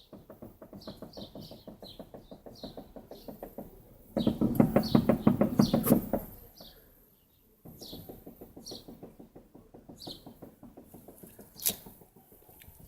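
Rapid, even knocking from a car's wheel or steering, about eight knocks a second, getting much louder for two seconds partway through, stopping briefly, then resuming quieter.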